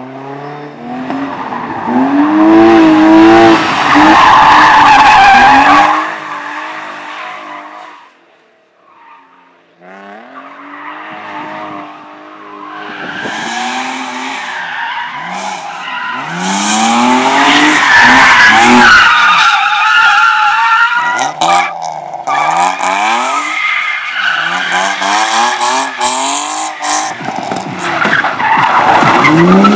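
Race car in a slalom run, its engine revving up and dropping again and again through tight turns, with tyres squealing and skidding. It is loud about two seconds in, fades almost away around the eighth second, then builds back up with long stretches of tyre squeal.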